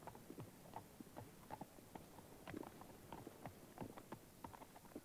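Faint, uneven clip-clop of horses' hooves, several knocks a second.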